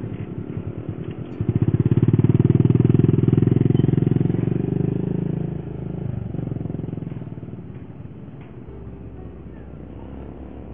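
Small motorcycle engine running in rapid pulses, getting louder as it pulls away about a second and a half in, then fading as it rides off.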